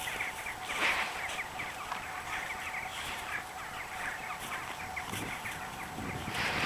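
Rapid run of short, high chirping calls, several a second, over a faint steady hum.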